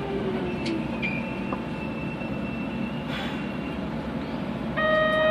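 Kobe Municipal Subway 3000 series train running, heard from inside: the Hitachi GTO inverter whine falls in pitch and fades about half a second in, under steady running noise. A loud steady electronic beep starts near the end.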